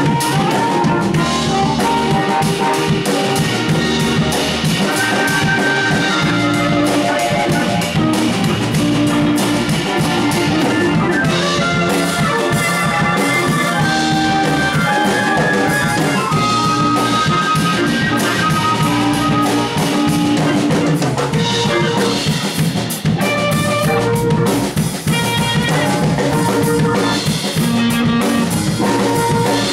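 Live band playing an instrumental passage. A drum kit keeps a steady beat with rimshots and bass drum, under held melodic notes.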